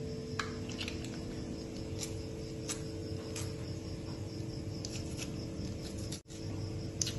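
Crickets chirping steadily in the background, over a low steady hum, with a few faint scattered clicks and a brief dropout about six seconds in.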